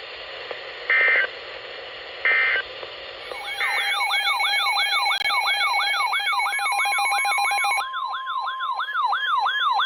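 Short bursts of EAS digital data tones, the end-of-message signal closing the warning. Then a siren-like alert tone starts: a rising whoop repeating about two and a half times a second over a steady tone that steps higher about eight seconds in.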